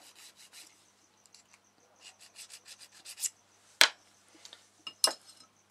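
A scalpel blade being sharpened by hand on a small sharpening tool: quick rasping strokes in two runs, then a sharp click about four seconds in and another about a second later.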